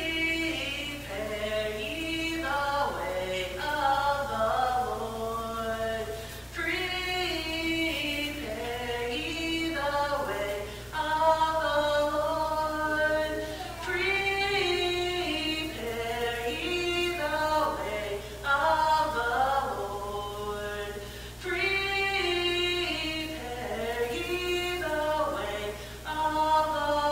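Voices singing without accompaniment: a slow melody sung in phrases of a few seconds each, with short breaths between them.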